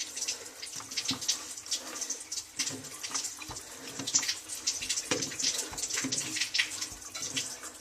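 Water running from a bathroom sink faucet, with scattered short clicks and knocks over the hiss of the flow.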